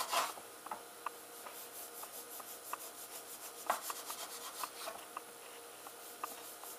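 Serrated knife sawing through a rolled log of cookie dough: faint, short rasping strokes, a few a second, at an uneven pace.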